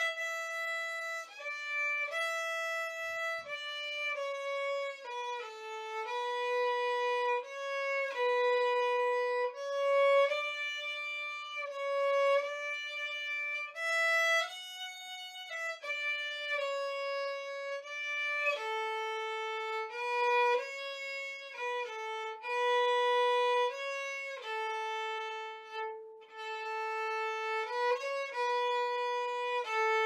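Solo violin playing a slow melody, one held note at a time, moving in small steps around the middle of its range.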